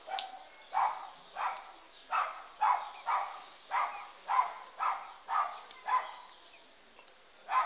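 Short animal calls, repeated about twice a second, each starting sharply and fading quickly, with a pause of about a second near the end.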